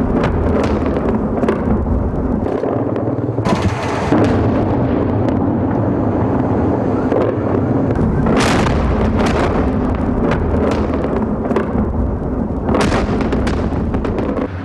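Heavy aerial bombardment of a city at night: a constant deep rumble of bomb explosions with many sharp cracks and bangs. A few louder blasts stand out, one about eight and a half seconds in and another near the end.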